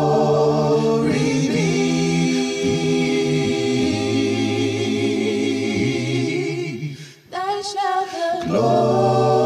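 A group of voices singing a hymn a cappella in harmony, on long held notes. The voices break off briefly about seven seconds in, then come back in.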